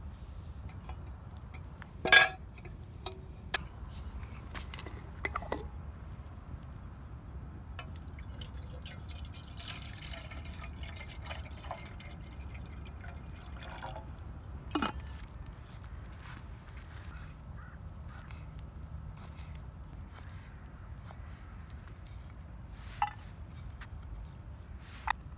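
Camp cooking sounds: liquid pouring and dripping, with several sharp clinks and knocks of cookware, the loudest about two seconds in.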